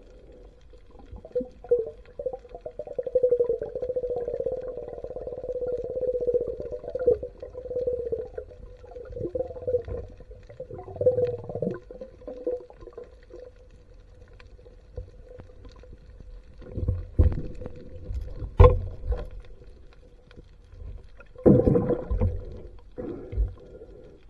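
Muffled underwater sound picked up by a submerged camera: a steady hum, with a wavering drone over it for the first ten seconds or so, then several dull thumps and swishes of water movement in the second half.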